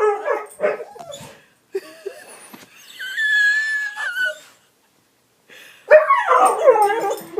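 Dog whining and grumbling in frustration because its bone is stuck out of reach under a sofa: short whimpers and yips, a long high whine about three seconds in, then a louder run of wavering, moaning whines near the end.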